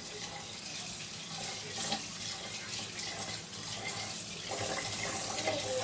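Kitchen tap running steadily into a pot of washed rice, filling it with water to the measure for cooking.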